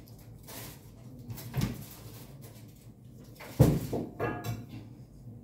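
A few household knocks and thumps, like cupboard doors and objects being handled. There is a light one about a second and a half in and the loudest about three and a half seconds in, followed by a short clatter with a brief high-pitched squeak.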